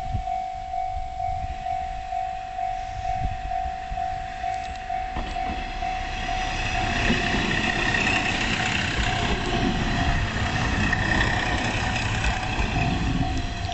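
Japanese railway level-crossing alarm ringing in a steady, even repeating beat, while a train passes through the crossing, its rolling noise swelling from about halfway through and staying loud to near the end.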